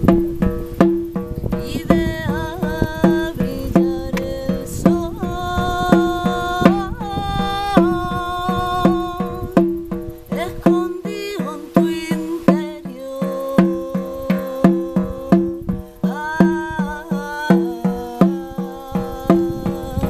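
Shamanic frame drum struck with a padded beater in a steady, even beat, each stroke ringing with a low tone, under a woman singing a slow chant melody with long held notes.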